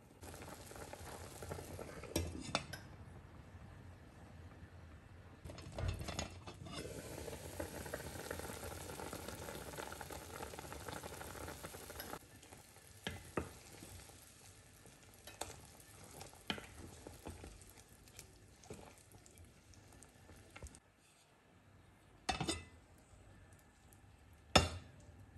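Chicken soup boiling hard in a stainless steel pot, a steady bubbling hiss that stops abruptly about halfway through. After that come a handful of sharp knocks of a utensil against the pot, the loudest near the end.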